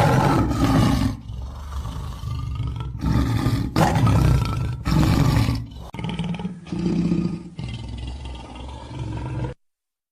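African lion roaring: a series of deep roars and grunts about a second apart, stopping abruptly near the end.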